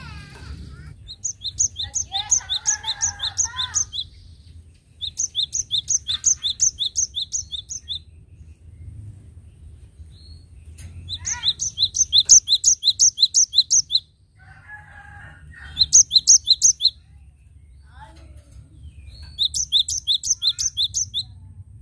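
Cinereous tit (gelatik batu) singing in full song: five phrases of quick, high, ringing notes repeated about four times a second, each phrase lasting two to three seconds, with short pauses between them.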